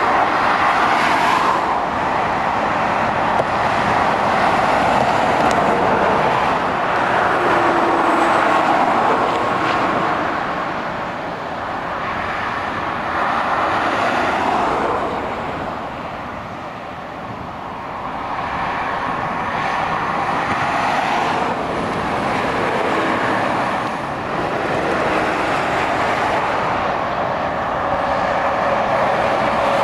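Motorway traffic: heavy lorries and cars driving past at speed, the tyre and engine noise swelling and fading as each vehicle goes by, with a quieter lull about halfway through.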